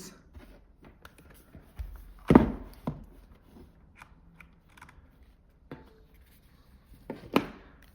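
Handling noise: a few separate sharp clicks and knocks as small devices and a cable are picked up, set down and connected. The loudest knock comes about two seconds in.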